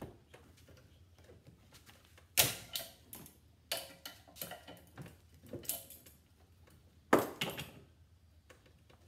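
Metal clinks and clanks of vise grips on a brass fitting and the bench vise as the fitting is turned off a gas regulator, with two louder clanks about two and a half seconds in and about seven seconds in.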